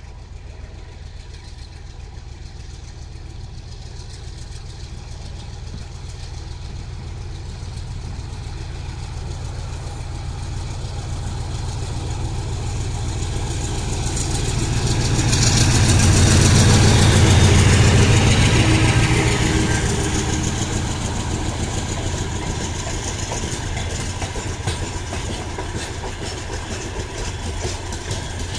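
GE C36-7i diesel-electric freight locomotive, with its 16-cylinder FDL diesel, pulling a freight train away under power: its engine hum grows louder as it approaches and is loudest as it passes about 17 seconds in, then fades. After it, the wheels of the open freight wagons roll by on the rails with a steady rumble.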